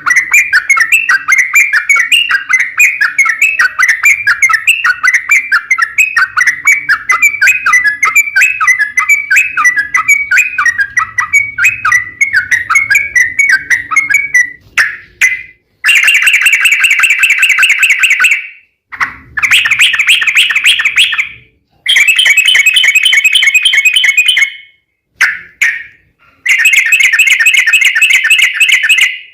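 Yellow-vented bulbul (trucukan) singing a long, rapid, chattering song for about fourteen seconds. It then sings in four bursts of a few seconds each, every one starting and stopping abruptly, with short silences between.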